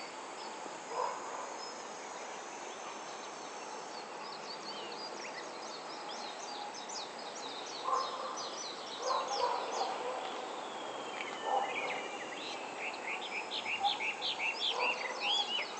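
Wild songbirds singing: rapid runs of short, high chirps, thickest in the middle and again near the end, with one longer falling note, over a steady background hiss. A few short lower-pitched sounds stand out as the loudest moments.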